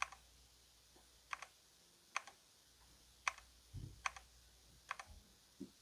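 Single key presses on an E-Yooso Z11 60% mechanical keyboard with red linear switches, one short click about every second, stepping through its RGB lighting effects. There is a soft thump twice.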